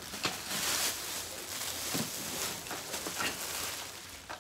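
Clear plastic bag crinkling and rustling as it is pulled off an electric pressure cooker, with a few light knocks as the cooker is handled.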